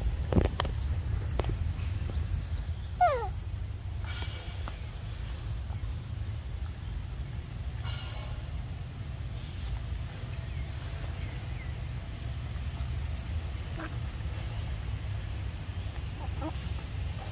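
Outdoor ambience with a steady low rumble, a couple of sharp clicks near the start, and one short chirp falling in pitch about three seconds in. A few fainter chirps come near the end.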